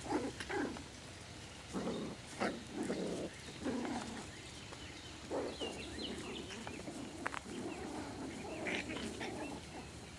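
Miniature schnauzer puppies barking in short, irregular bursts as they play, with a few brief high squeaks in the second half.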